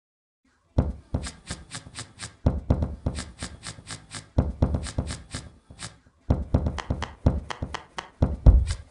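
A percussive beat: deep thumps with runs of quick, crisp ticks at about four a second between them. It starts just under a second in and breaks off briefly around six seconds before picking up again.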